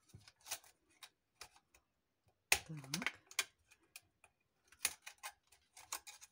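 Irregular sharp clicks and crackles of stiff plastic-bottle strips being handled and bent outward by hand.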